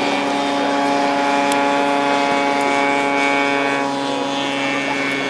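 Radial engine of a giant-scale radio-controlled model biplane running steadily in flight, an even buzzing drone that fades a little about four seconds in.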